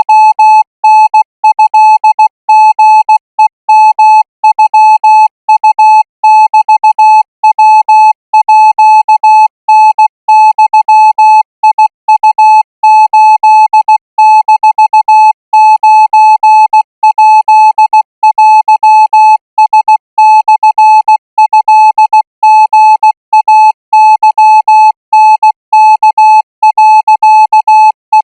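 Morse code practice signal: a single steady-pitched beep keyed on and off in dots and dashes at 20 words per minute, sending Thai Morse characters.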